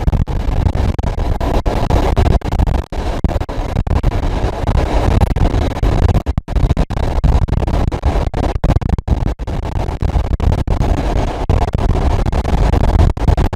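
Wind buffeting the microphone on a moving train: a loud, low rumbling rush that cuts out briefly many times, over the train's running noise.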